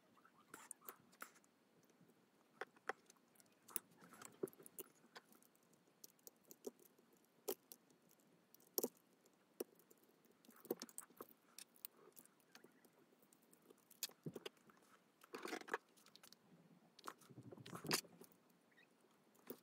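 Faint scattered clicks and small taps from small plastic and metal parts of a model locomotive's power truck being handled and fitted together by hand, with a few longer rustling handling noises near the end.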